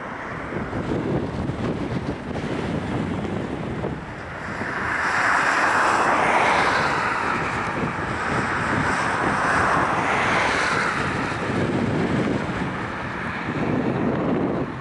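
Boeing 737-800's twin CFM56-7B turbofans at takeoff thrust as the airliner lifts off and climbs away, a broad jet noise that swells about five seconds in and stays strong before easing. Gusty wind buffets the microphone throughout.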